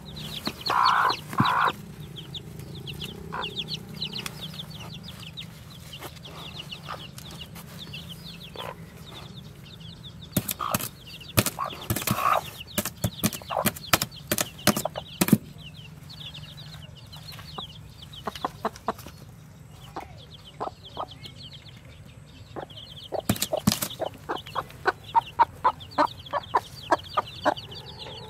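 Newly hatched chicks peeping rapidly and continuously in the nest, with the broody hen's louder clucks near the start and sharp clicks and rustles in the straw, including a quick regular run of clicks near the end.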